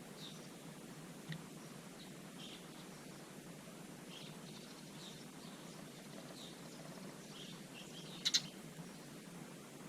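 Small garden birds chirping faintly and now and then, over a steady low background noise. About eight seconds in come two short, much louder chirps close by.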